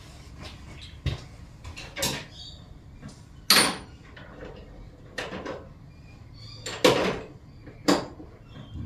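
A series of separate sharp knocks and clanks, about six in all, the loudest about three and a half seconds in and again near seven seconds, some with a short metallic ring: tools and parts being handled and set down after a job.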